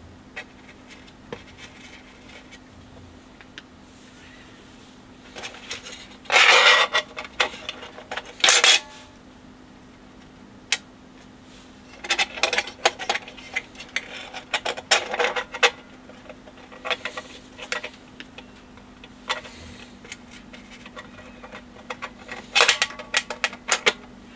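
Small metal parts clicking, clinking and scraping against the steel chassis of a BSR UA15SS record changer as a part is worked back into place by hand, in several irregular bursts with pauses between them.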